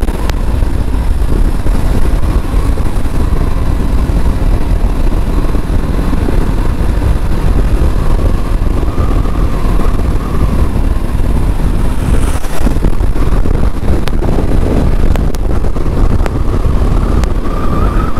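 Motorcycle being ridden at road speed, heard from the rider's camera: a loud, steady rumble of wind on the microphone with the engine running underneath.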